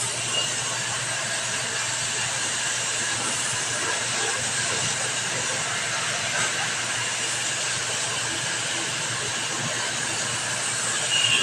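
A steady, even hiss that stays level throughout.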